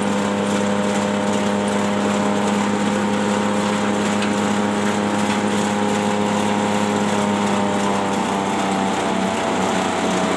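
Grass chopper driven by a GX160-type 5.5 hp single-cylinder four-stroke petrol engine, running steadily as chopped grass comes out of the chute. Its pitch sags slightly near the end.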